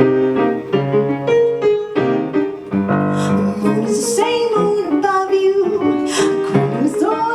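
Jazz band with piano playing an instrumental passage; in the second half a sliding, sustained melody line comes in over the piano.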